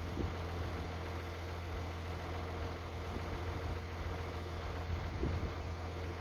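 M35A2 6x6 truck's multifuel turbodiesel engine idling steadily as a low, even hum, with a couple of brief louder moments near the start and about five seconds in.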